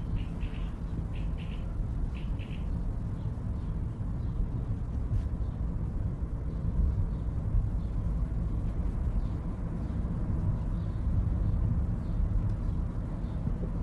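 Outdoor ambience: a steady low rumble under short high chirps from a small bird, which come several times in the first three seconds and a few more times more faintly later.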